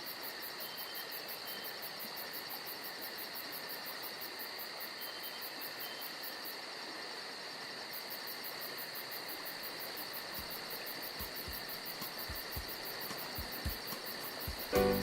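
Crickets chirping steadily, a continuous high trill with a fast regular pulse. A few soft low thumps come in over the last few seconds.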